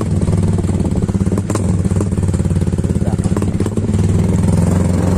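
Small motorcycle engine running steadily under way, its even firing pulses unbroken.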